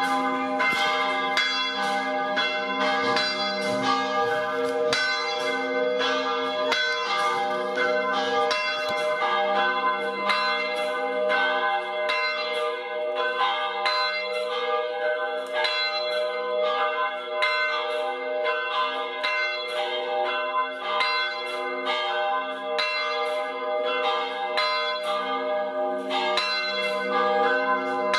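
Several church bells ringing together in a continuous peal, struck in quick overlapping succession with their tones ringing on between strikes.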